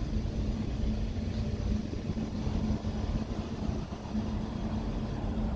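Steady low drone of a ship's machinery under way, with a constant hum.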